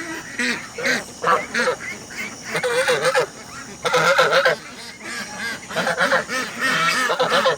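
Domestic geese honking, many short calls overlapping in quick succession, loudest about halfway through.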